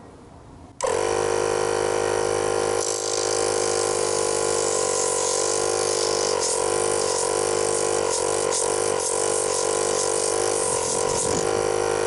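An air compressor starts abruptly about a second in and runs loud and steady, its hum wavering in pitch in the second half. From about three seconds in, a hiss of compressed air joins as the blow gun is held to a hydraulic lifter to force out its internal parts.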